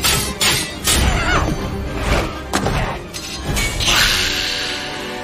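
Action-film soundtrack: music under a run of sharp crashes and shattering hits, then a long hissing noise that swells in about four seconds in.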